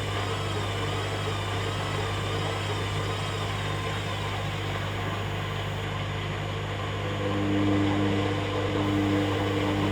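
Hoover Dynamic Next washing machine running through its rinse-and-spin programme: a steady low hum under a motor whine that wavers up and down in pitch. About seven seconds in, new steady tones join and the machine gets a little louder.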